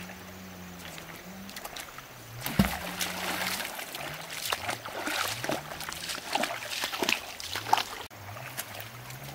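Footsteps splashing through shallow river water over pebbles, an irregular run of sloshing steps starting about two and a half seconds in and breaking off near the end. A low hum that rises and falls in pitch runs underneath.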